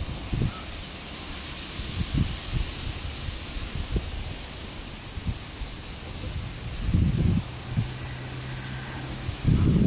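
Outdoor ambience: a steady high hiss with scattered low thumps and rumbles, and a low steady hum for a couple of seconds near the end.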